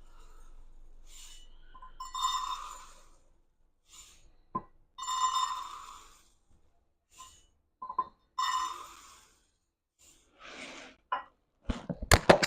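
Rice Bubbles (puffed rice cereal) poured by the cupful into a mixing bowl: three pours of about a second each, a few seconds apart, with a faint ringing from the bowl. Near the end come a few sharp clinks and knocks.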